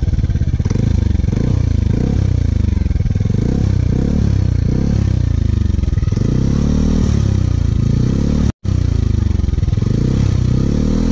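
Yamaha Aerox 155 scooter's single-cylinder four-stroke engine revved again and again through a newly fitted IXIL full-system exhaust with its dB killer in, each blip rising and dropping back. The sound cuts out for an instant about eight and a half seconds in.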